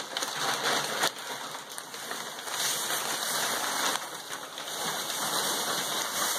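Newsprint and paper wrapping rustling and crinkling as it is peeled off a steamed silk piece by hand: a steady crackly rustle with a few sharper crinkles.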